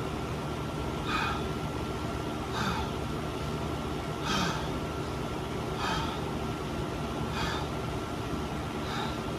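A person breathing hard through the mouth, with a sharp breath about every second and a half, to cope with the burn of an extremely hot chip. A steady hum sits underneath.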